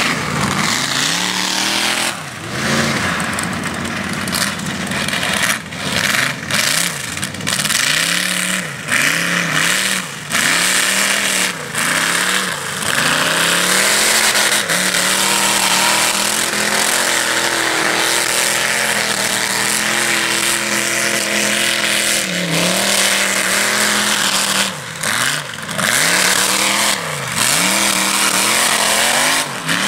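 Lifted off-road mud truck's engine revving hard as it tears across a dirt track, the revs climbing and dropping over and over, held high and steady for several seconds in the middle.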